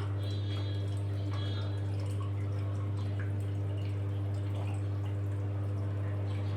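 Washing machine running: a steady low hum with water dripping and splashing inside.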